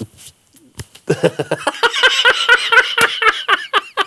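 Hearty laughter that starts about a second in and breaks into quick, rapid pulses of breathy laughing toward the end.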